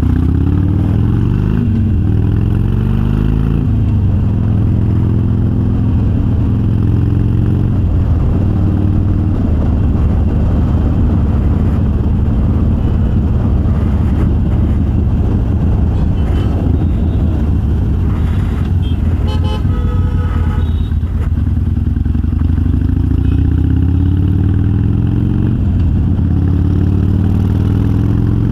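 Harley-Davidson Sportster's air-cooled V-twin running under way through Vance & Hines Twin Slash 3-inch slip-on mufflers with quiet baffles. Its pitch rises and falls several times with throttle and gear changes. A vehicle horn sounds briefly about two-thirds of the way through.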